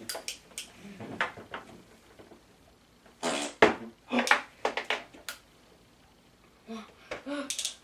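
Short clicks, knocks and light clatter of small hard objects being handled, with brief quiet voice sounds between them.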